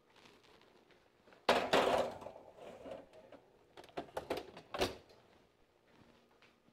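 Kitchen oven door and a pizza pan being handled: a scraping clatter about a second and a half in, then several knocks and a sharper bang near five seconds, typical of a pan sliding onto the oven rack and the door being shut.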